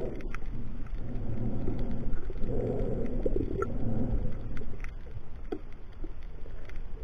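Muffled underwater ambience picked up by a camera in a waterproof housing: a low, shifting rumble of water movement with a few scattered short clicks.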